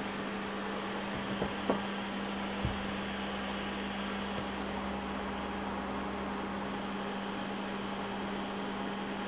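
Steady whirring, fan-like noise with a constant low hum, the background running of electronics-bench equipment, with a few faint clicks or taps between about one and a half and three seconds in.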